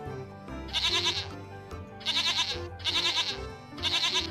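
Goats bleating four times in quick succession, each bleat about half a second long and wavering, over background music.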